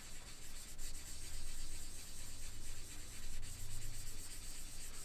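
400-grit silicon carbide paper scrubbed over a flat aluminium beam wetted with conditioner: a soft, scratchy sanding sound in repeated strokes, the wet abrasion that cuts through the machining marks and oxide before a strain gauge is bonded.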